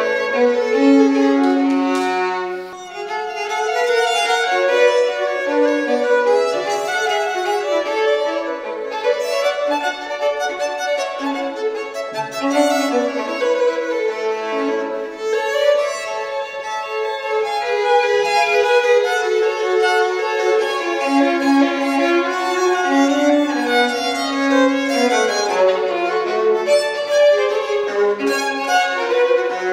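Two violins playing a duet, bowed notes changing quickly in interlocking lines, in the echo of a stone church.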